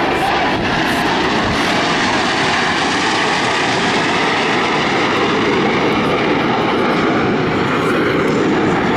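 Jet noise from Blue Angels F/A-18 Hornet jets flying past, loud and steady.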